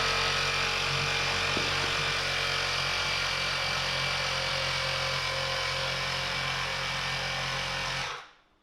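Small electric air pump running steadily, inflating a new scooter inner tube to check it for leaks; it switches off abruptly about eight seconds in.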